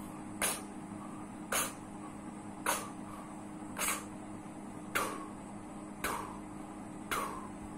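Short, sharp breath puffs from a man's mouth, about one a second, seven in all: the tongue stops the air and then lets it go with a 'tu', the tongue-stop push used for harmonica rhythm, made without the harmonica.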